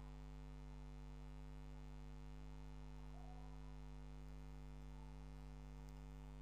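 Faint, steady electrical mains hum picked up on the microphone line, a low buzz with a stack of higher overtones and no other sound.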